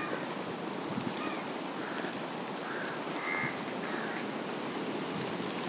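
A bird giving a run of about five short caw-like calls, between about one and four seconds in, over a steady background rush.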